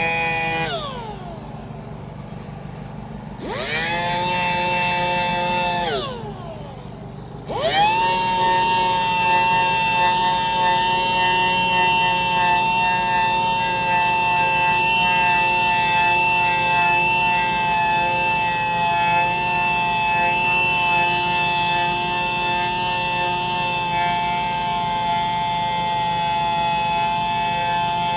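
Power sander with 220-grit paper sanding out curb rash on an alloy wheel, its motor giving a steady whine. It winds down and starts up again twice in the first seven or so seconds, then runs steadily.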